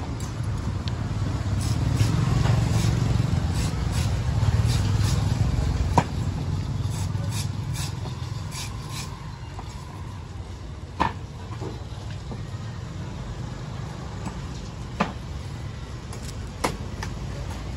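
Machete chopping into a green coconut: a few sharp, separate strikes several seconds apart. Under them is the low rumble of street traffic, louder in the first few seconds.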